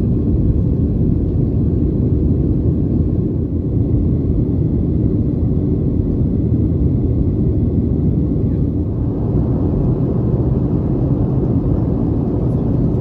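Cabin noise inside a Boeing 737-800 in flight near the top of its climb: a steady, low rumble of the CFM56-7B engines and airflow, heard from an economy seat behind the wing.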